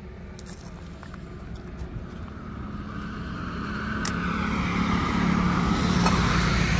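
A road vehicle passing close by, its engine and tyre noise swelling over the last few seconds. Small plastic clicks of a drone's folding arms being opened, the sharpest about four seconds in.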